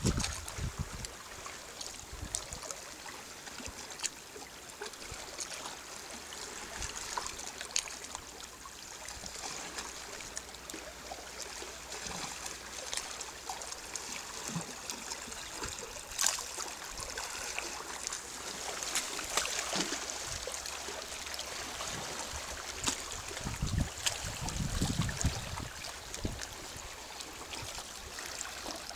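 Calm sea water lapping and trickling among shoreline rocks, with small splashes and gurgles. Some wind buffets the microphone near the end.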